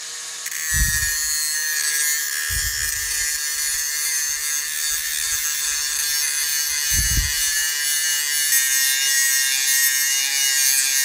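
Cordless Makita angle grinder running, then grinding the steel edge of a lawn mower blade with an abrasive disc: a steady harsh grinding hiss over the motor's whine, starting about half a second in. A few low thumps come and go underneath.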